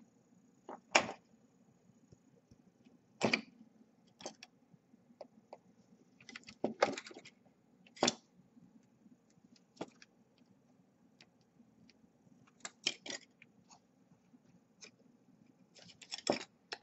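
Sharp clicks and small metallic clinks of pliers handling a brushless drone motor and its screws against the arm's mount, irregular and sometimes two or three in quick succession.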